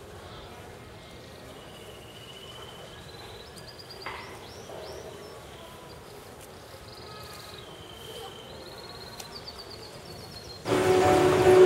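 Outdoor background with small birds chirping and trilling now and then. About a second before the end it switches abruptly to a much louder hubbub of voices and music.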